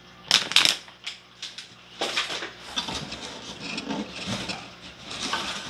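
Plastic packaging bag crinkling and cardboard boxes rubbing and scraping as they are handled, with the sharpest rustle about half a second in.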